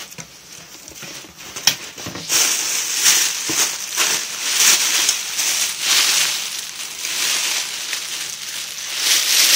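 Inflated plastic air-pillow packing crinkling and rustling as it is handled and pulled from a cardboard box: a few sharp crackles at first, then about two seconds in a continuous dense rustle.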